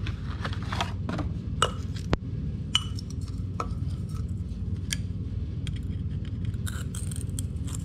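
Scattered light metallic clicks and clinks as a steel hose clamp with safety wire is handled and slipped around a new motorcycle oil filter. A steady low hum runs underneath.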